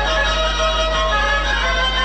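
Black Sea kemençe playing a horon dance tune.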